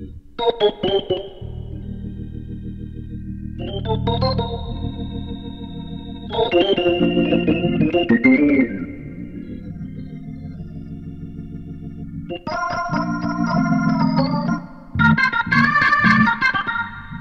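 Background organ music: held chords that change every few seconds.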